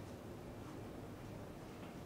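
Quiet hall ambience: a low steady hum with no distinct ball or cue strike.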